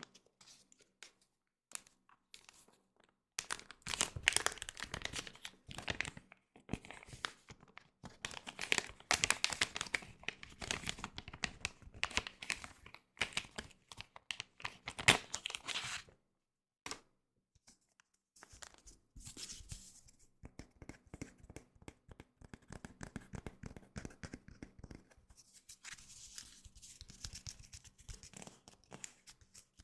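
Foil Pokémon booster pack wrapper being torn open and crinkled, loudest through the first half. After a short pause, quieter rustling and crinkling of the wrapper and its contents.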